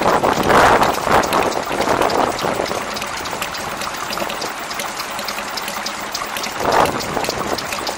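Small vintage stationary engine running steadily and belt-driving a centrifugal blower that blows into a canvas sock. An even rushing of air sits over a quick, regular beat from the engine, swelling louder about a second in and again near the end.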